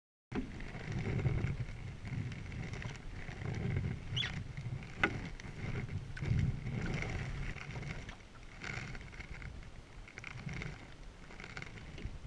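Single-bladed paddle strokes in the water beside a Selway Fisher Wren canoe, with water splashing and lapping at the hull. A stroke swells up about every two and a half seconds. One sharp click comes about five seconds in.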